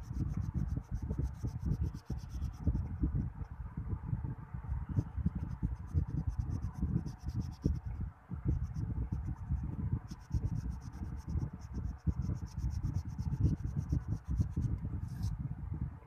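Pink wax crayon rubbed rapidly back and forth on paper, shading in an area with a continuous scratchy scribbling of quick strokes.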